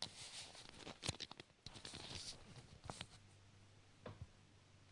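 Faint rustling and crackling of a towel and crinkly sheet being handled, in short irregular scratchy bursts, with a sharper click a little after four seconds in.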